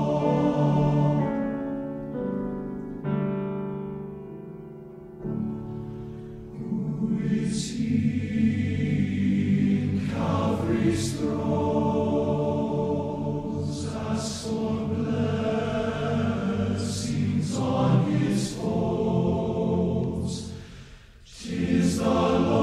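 A choir singing a slow sacred piece in long-held chords, with the sound fading briefly twice between phrases.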